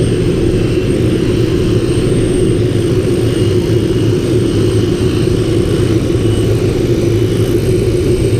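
Helicopter running on the ground, its turbine engine and turning rotor making a steady low drone.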